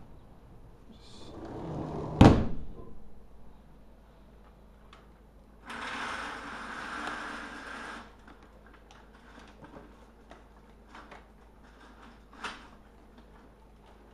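A door is shut with a loud bang about two seconds in, just after a short rush of noise as it swings. Then comes a steady hiss lasting about two seconds, with scattered light clicks around it.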